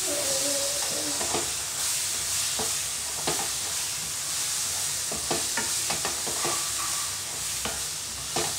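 Wooden spatula stirring and scraping a thick banana, jaggery and coconut mixture around a non-stick kadai, with irregular knocks of the spatula against the pan over a steady sizzle of the mixture cooking in ghee.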